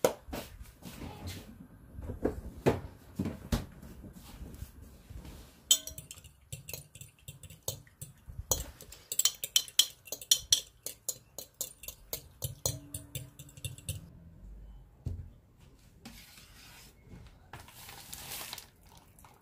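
A utensil stirring in a glass mixing bowl, clinking and scraping against the glass in quick runs of strokes as a cod roe and milk sauce is mixed. Near the end there is a soft rustle as spaghetti goes into the bowl.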